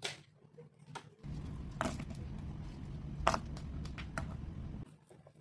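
Knife cutting red chillies on a wooden cutting board: two sharp cuts about a second apart. Then a steady low rumble with three sharp clicks runs for about three and a half seconds and cuts off suddenly.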